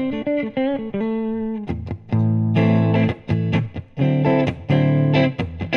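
Oscar Schmidt OE20 Les Paul-style electric guitar with humbucking pickups, on its neck pickup, played through a VOX VT40X amp on its original, somewhat dead strings. It plays a few single-note licks with a bent note, then strikes chords in a rhythm from about two seconds in.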